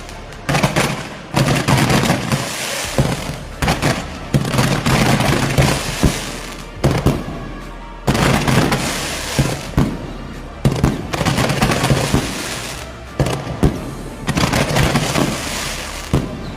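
Fireworks going off in a rapid series of sharp bangs, about one or two a second, each followed by a noisy trail, with music playing underneath.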